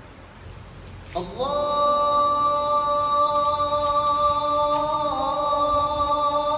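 A man's voice chanting a long held note. It slides up into the note just over a second in, holds it, and steps slightly lower about five seconds in.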